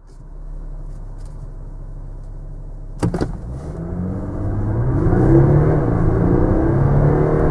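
Audi A4 3.0 TDI's turbocharged V6 diesel heard from inside the cabin: it idles steadily, then a short sharp knock about three seconds in as the car launches from standstill under full throttle. The engine note climbs in pitch and grows louder, with one upshift from first into second gear of the dual-clutch gearbox partway through.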